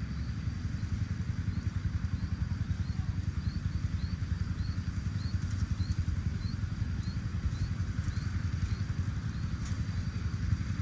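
A small engine running steadily, with a faint high chirp repeating about two to three times a second over it.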